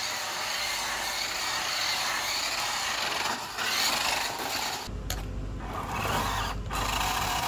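WPL D12 RC mini truck driving on concrete: the steady running noise of its small electric motor, drivetrain and tyres. About five seconds in it changes to the truck crawling over loose gravel, with a lower rumble and a couple of brief drop-outs.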